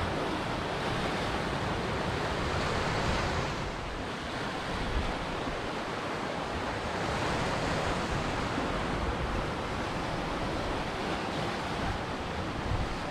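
Ocean surf: waves breaking and washing ashore in a continuous rush of noise that swells and eases gently.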